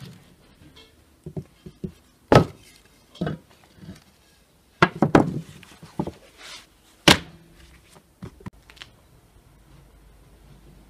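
Knocks and thunks of a long thin wooden rolling pin and a sheet of rolled-out dough being handled on a large wooden board. There are two sharp knocks, about two and seven seconds in, and a cluster of softer ones around five seconds.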